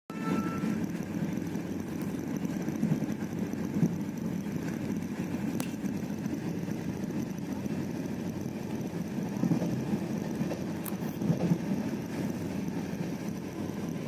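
Steady low rumble of a moving passenger train heard from inside a 2nd AC coach, with two faint clicks along the way.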